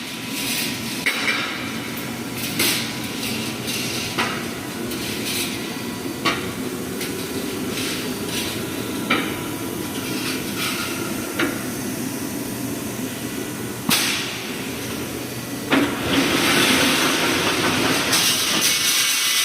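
Pneumatic reinforcing wire mesh welding machine running: a steady machine drone with sharp clanks every one to three seconds, and a few seconds of loud hissing air near the end.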